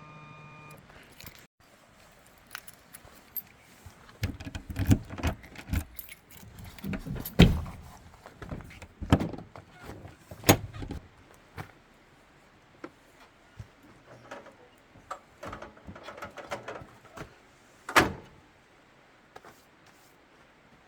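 Gear being handled by hand: a string of clinks, rattles and knocks, with heavier thumps in the middle and one sharp knock near the end.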